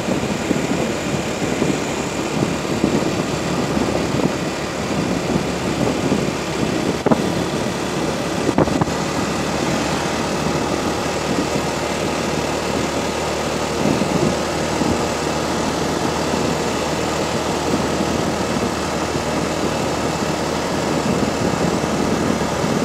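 Strong wind buffeting the microphone of a moving vehicle, over the steady running of its engine and tyres on the road. Two short knocks come about seven and nine seconds in.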